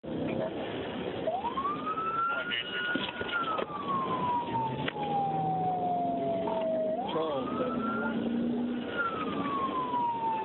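Police car siren on wail: the tone rises in about a second, holds briefly, then slides slowly down over several seconds before rising and falling again near the end, over engine and road noise.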